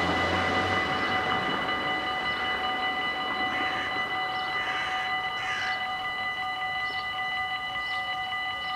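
Level-crossing warning bells ringing continuously at several steady pitches, while the rumble of a GTW electric train passing the crossing fades away over the first few seconds.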